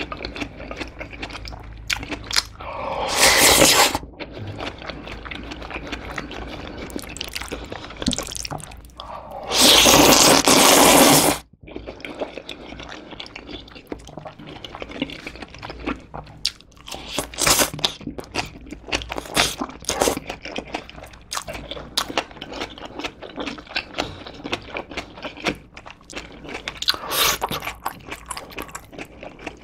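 Close-miked eating of black bean noodles (jjajangmyeon): two long loud slurps, about three and ten seconds in. After them come steady chewing and short clicks of chopsticks and food.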